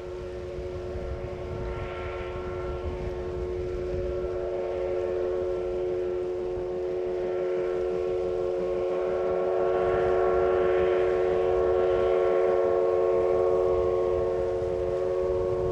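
C58 steam locomotive passing with a long, steady whistle note made of several tones, growing louder as the train comes across the viaduct.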